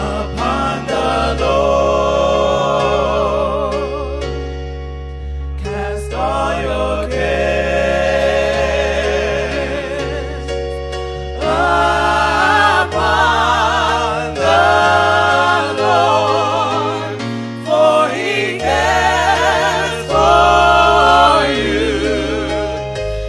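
Slow gospel singing by a choir: long held notes with vibrato, in phrases of several seconds, over sustained keyboard chords and bass.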